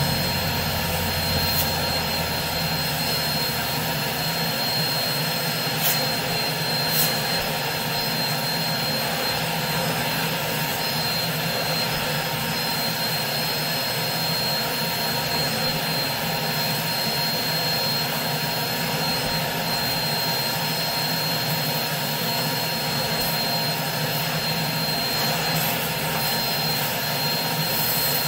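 Carpet-cleaning extractor running steadily, its vacuum pulling air and water through a floor wand worked over a wool rug: a constant rushing roar with a high whine, and two brief clicks about six and seven seconds in.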